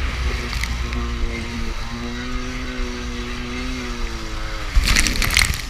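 Kawasaki 650SX stand-up jet ski's two-stroke twin engine running at steady high revs over a low rumble of wind and water. About five seconds in comes a loud crash of spray as the craft slams through a wave.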